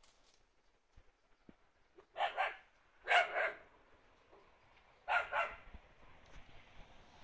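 A dog barking: three pairs of short, quick barks, starting about two seconds in and again a second and three seconds later.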